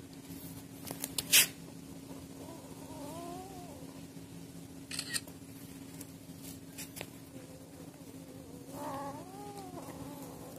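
Young kittens crying out while eating food scraps: two drawn-out, wavering cries, one about three seconds in and another near the end, over a steady low hum. A few sharp clicks come between them, the loudest about a second and a half in.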